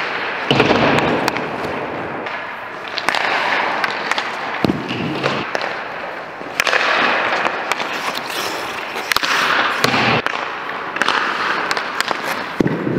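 Ice-hockey skate blades scraping and hissing on the ice in repeated bursts of a second or two as the goalie shuffles and slides in his crease. Sharp cracks and thuds come in between.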